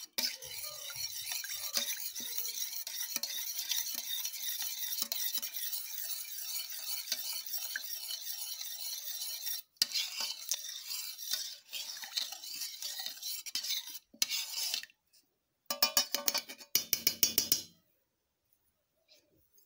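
A utensil stirring milk, oil and lemon juice in a metal pot: a steady swishing and scraping against the metal. After about ten seconds it turns stop-and-start, with a short run of rapid taps around sixteen seconds in.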